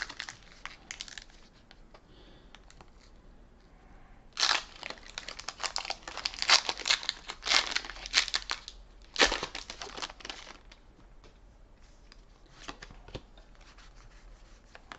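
Foil wrapper of a Pokémon Sword & Shield booster pack being torn open and crinkled in the hands, in crackly runs of tearing and crinkling that start about four seconds in and stop about six seconds later.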